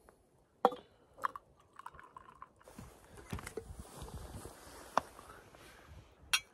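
Enamel camp mugs knocking and clinking on a wooden stump as hot tea is poured into them and they are picked up, a sharp clink near the end. A steady rushing hiss runs through the middle.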